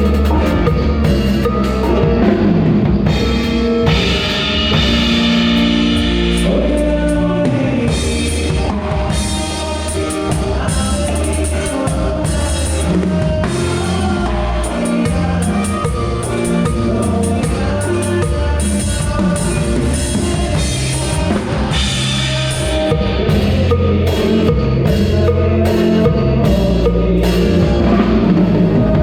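Live band playing a song, with the drum kit prominent over sustained, shifting bass notes and other instruments, loud and unbroken.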